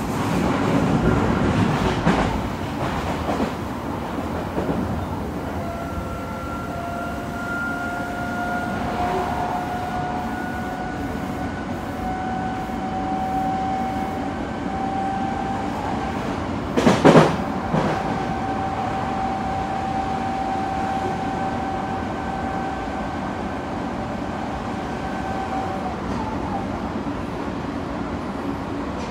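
Running noise heard inside an Odakyu 3000 series electric train car at speed: a steady rumble of wheels on rail, with a whine that rises slightly in pitch and then holds steady. A single brief, loud rush cuts in a little past halfway.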